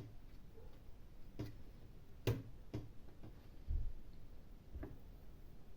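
A handful of light, irregular clicks and taps of small tools and parts being handled while working on a tablet's insides, the sharpest a little past the middle, with one dull low knock shortly after.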